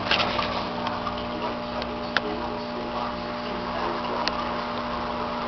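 Steady electric hum of aquarium equipment under the hiss and bubbling of an air stream rising through the tank water, with a few sharp ticks near the start and about two and four seconds in.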